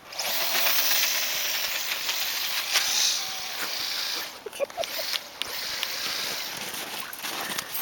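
Axial AX10 radio-controlled crawler driving through snow: its electric motor and drivetrain run with a hissing noise of tyres churning snow, starting suddenly. The noise dips about four and a half seconds in with a few clicks, then picks up again.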